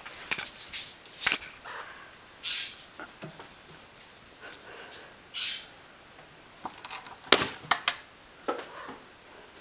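Scattered clicks and knocks of fridge magnets being batted by a cat against a refrigerator door, the loudest about seven seconds in, with a few short hissy sounds in between.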